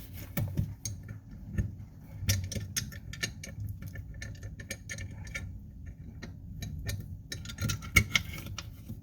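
Irregular light clicks and taps of small hard parts being handled, over a faint steady low hum.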